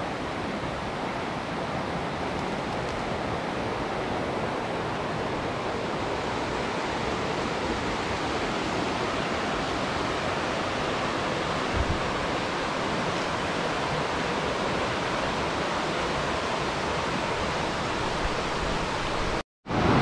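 Rushing water of river rapids pouring over rocks, a steady rush. It cuts out for a moment near the end.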